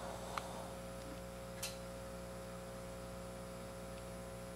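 Steady low mains hum from powered-up electrical gear, with faint clicks about half a second and a second and a half in.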